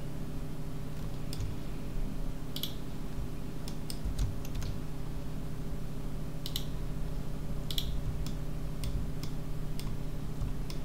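Computer keyboard keys and mouse buttons clicking at irregular intervals, about a dozen presses, over a steady low hum.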